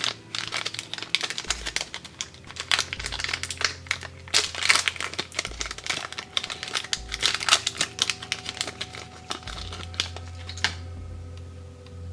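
Wrapper of a French ration energy bar crinkling and crackling as it is handled and opened, in quick irregular crackles that stop near the end.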